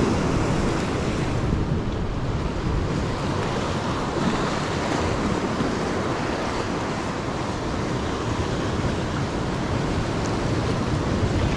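Sea surf washing and swirling among coastal rocks, a steady rushing noise, with wind buffeting the microphone.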